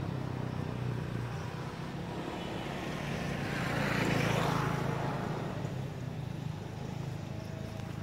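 A motor vehicle passing off-camera: a steady low engine drone throughout, with road noise that swells to its loudest about halfway through and then fades away.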